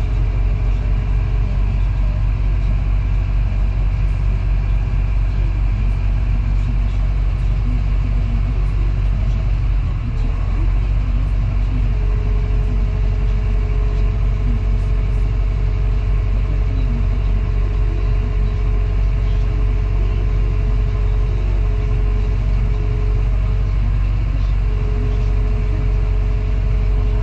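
Diesel engine of a heavy construction machine running steadily with a low rumble, heard from inside its cab. About halfway through, a faint steady whine joins it, dropping out briefly near the end.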